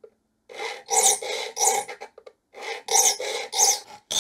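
Triangular saw file rasping across the teeth of a dovetail saw in quick strokes: about four, a short pause, then about four more. The teeth are being cut anew as rip teeth, with the file held straight across at 90 degrees and two strokes per run.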